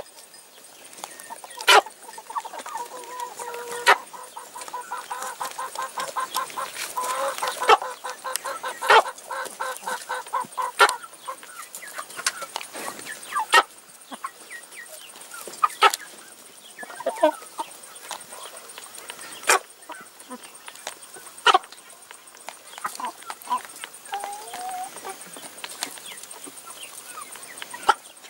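Domestic hens clucking, with a run of quick repeated clucks from about two seconds in to about twelve seconds and softer calls after. Sharp knocks every few seconds, the loudest sounds, as beaks strike the plastic feeding tray while pecking.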